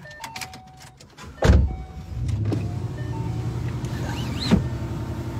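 Ford Mustang being started: a few short chime tones, then the engine fires with a loud burst about a second and a half in and settles into a steady idle.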